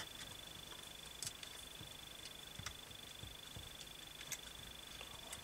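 Faint, scattered light clicks of metal engine parts being handled, a piston and gudgeon pin being fitted onto the connecting rod's small end. The clearest clicks are near the start and about four seconds in, over a quiet room with a thin steady high tone.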